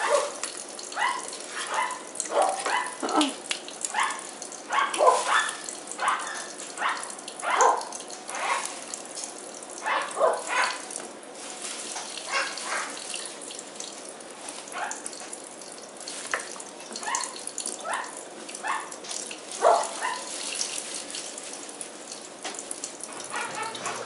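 Kitchen faucet running steadily into a sink while a hyacinth macaw bathes in the stream, with many short splashy bursts that thin out near the end.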